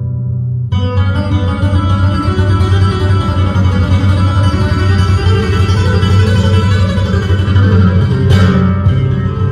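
Solo flamenco guitar playing. A held chord rings, then about a second in a busy passage of plucked notes and strums begins, with one sharp strummed accent near the end.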